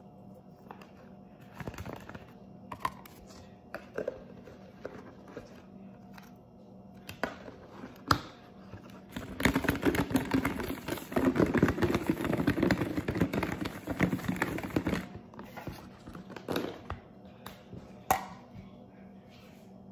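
Plastic tub of fried chicken wings and sauce being handled with scattered clicks and knocks, then shaken hard for about five seconds to coat the wings: a dense rapid rattling of wings tumbling inside the container. A few more clicks follow as it is set down.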